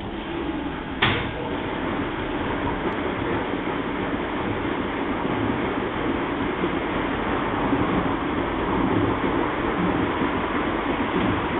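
IPSO 181 commercial washing machine running, its drum turning in a steady mechanical noise that slowly grows a little louder, with a single sharp click about a second in.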